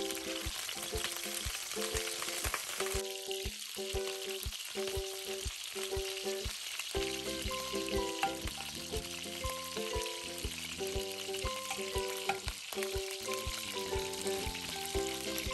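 Cauliflower florets sizzling as they fry in hot oil in a pan, stirred and turned with a slotted metal spatula. Background music with a steady beat plays along.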